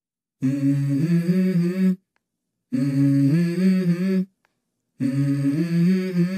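Background music: a hummed vocal melody in three short phrases, each held on stepped notes, with sudden silent gaps between them.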